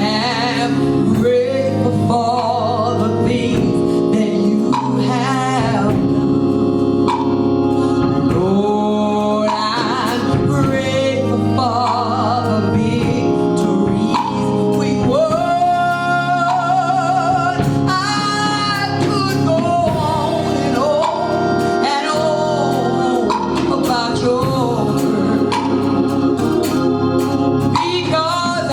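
Gospel singing with organ accompaniment: a sung melody with vibrato over sustained organ chords.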